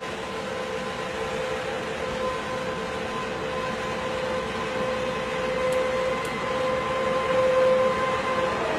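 An unexplained, steady trumpet-like drone of the kind reported as mysterious 'screeching trumpet' sky sounds. It holds a tone with its higher overtone over a dense rumbling haze and swells a little near the end.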